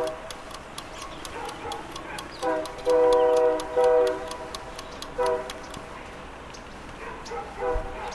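Several blasts of a horn-like chord, the longest about a second long around three seconds in and shorter ones later, over a rapid steady ticking that stops about halfway through.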